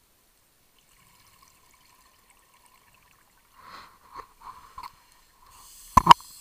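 Scuba diver breathing through a regulator, heard underwater: a few short gurgles of exhaled bubbles, then the hiss of an inhalation near the end. Two sharp clicks about six seconds in are the loudest sound.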